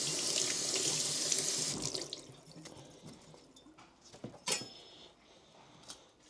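Kitchen tap running into the sink over broccoli being washed, shutting off about two seconds in. After that come a few faint knocks, the sharpest about four and a half seconds in.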